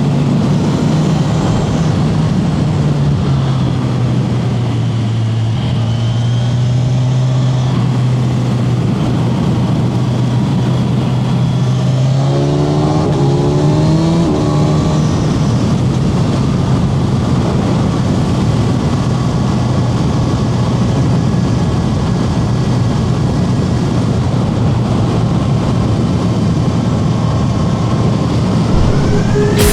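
Kawasaki Z1100 SE's air-cooled inline-four engine running loud at fairly steady revs, the pitch dropping slightly about three seconds in and climbing again around twelve to fourteen seconds.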